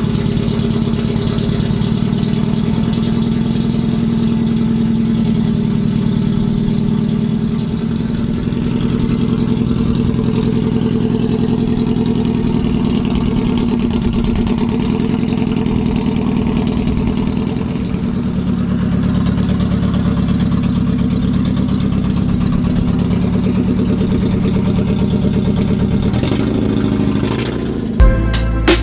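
Straight-piped Mazda Miata four-cylinder, running without a catalytic converter or muffler, idling steadily and loud.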